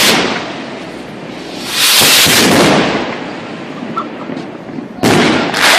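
Star Blaster firework rockets by Spook bursting overhead. A burst is already fading at the start, another comes about two seconds in and dies away slowly, and a third arrives near the end.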